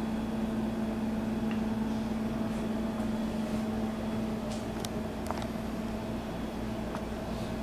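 Whirlpool two-door refrigerator's compressor running with a steady hum, with a few faint clicks.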